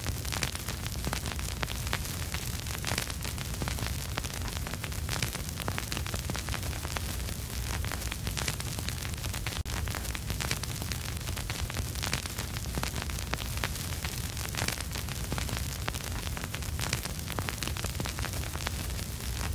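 Vinyl record surface noise with no music: a steady hiss thick with random crackles and pops, over a low rumble.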